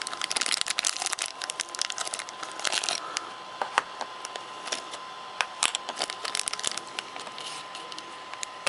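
Clear plastic bag crinkling and tearing as it is pulled open by hand around a small toy figure: dense crackling for about three seconds, then sparser crinkles as the wrapper is handled.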